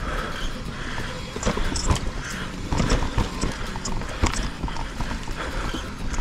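Mountain bike clattering and knocking over a rough, rocky trail on a descent, with irregular sharp knocks from the frame and wheels over a rumbling low end.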